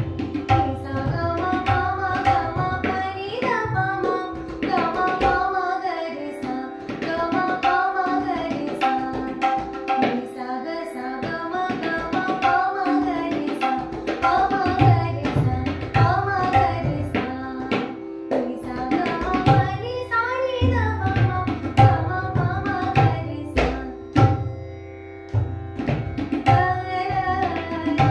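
Woman singing a Hindustani khyal in raga Maru Bihag, with ornamented phrases that glide between notes, over a steady drone. Tabla strokes keep the rhythm beneath her voice.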